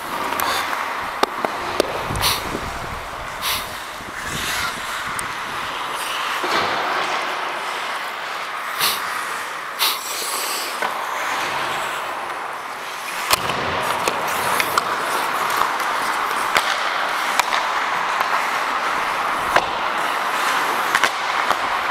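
Ice hockey play heard from a referee's helmet: a steady hiss of skate blades on the ice with scattered sharp clacks of sticks and puck.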